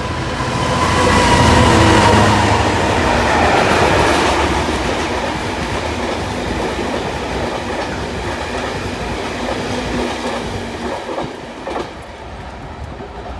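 Freight train hauled by a Class 66 diesel locomotive passing, loudest about two seconds in. The wagons' wheels then clatter steadily over the rail joints, easing off near the end.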